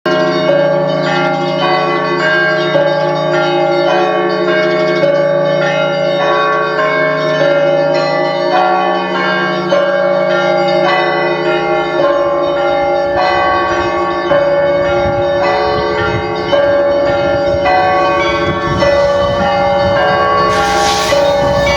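Russian Orthodox church bells ringing: smaller bells struck in a quick, repeating pattern over the steady hum of a larger bell, their tones overlapping and lingering.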